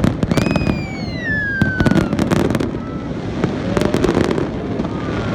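Aerial fireworks going off in rapid succession, with sharp bangs and crackles over a low rumble. A long whistle falls in pitch from about half a second in, lasting around two seconds.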